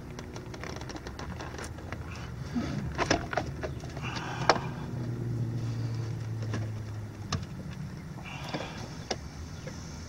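Pliers clicking and scraping against the oil filter of a Yamaha F250XA outboard as they grip and twist it to loosen it, a few sharp clicks with the loudest about halfway through. A low steady hum sounds for a couple of seconds in the middle.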